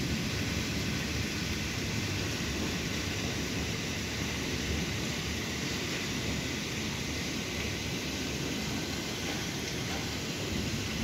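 Steady rain during a thunderstorm, an even hiss with no distinct drops, between rolls of thunder; a new low rumble of thunder begins right at the end.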